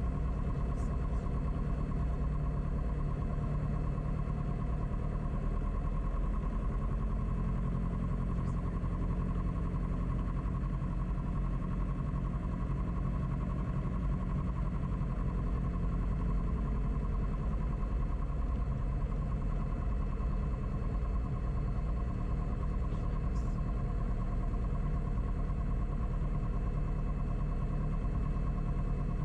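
Beechcraft Musketeer's single piston engine and propeller running at taxi power, heard from inside the cockpit as a steady low drone. The camera rattles on its mount, which muddies the sound.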